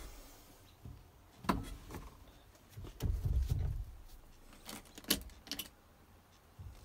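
Clicks and knocks from the cab controls of a Mercedes-Benz truck being handled, with a dashboard switch worked by hand near the end and a short low rumble about three seconds in; the engine is not yet running.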